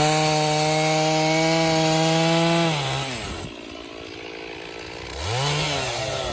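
Stihl chainsaw revving up and held at a steady high pitch for about three seconds while bucking elm, then dropping back toward idle. It revs up again about five seconds in.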